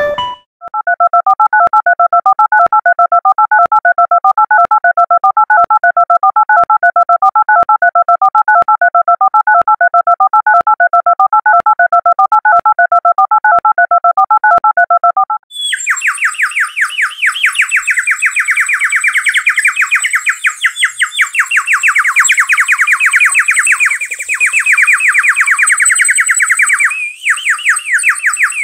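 An electronic warbling two-tone signal, like a trilling phone ringer, pulses rapidly for about the first half. It cuts off and gives way to a harsh, high, rapidly pulsing electronic buzz.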